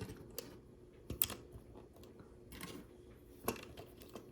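Plastic LEGO pieces being handled and pressed together: a few light, sharp clicks, the loudest about a second in.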